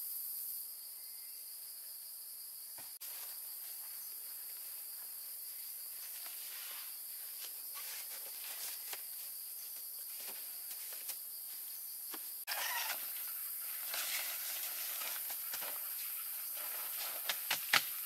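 Steady high-pitched insect chorus, with tent fabric rustling as it is handled and a quick run of sharp clicks and taps near the end.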